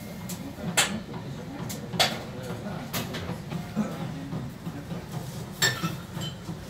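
Clinks of chopsticks and ceramic bowls being handled on a tray, about four sharp knocks, over the steady low murmur of a restaurant dining room.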